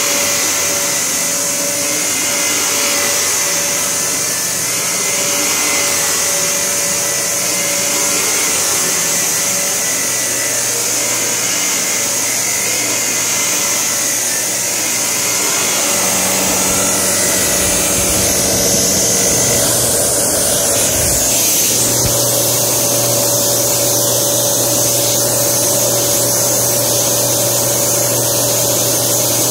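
Panasonic MC-UG729 Quiet Force upright vacuum cleaner running on carpet, motor and brush roll going steadily and sounding a little rough. A little past halfway there are a few low knocks, and the motor note shifts to a steadier hum.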